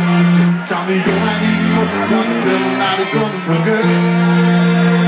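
Live brass band music played loud through a PA, recorded from the crowd. Sustained chords ride over a bass line that moves about through the middle and then settles back into held notes.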